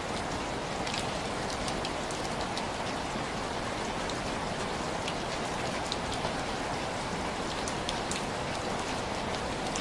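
Heavy rain falling steadily as a dense, even hiss, with scattered faint, sharp clicks over it.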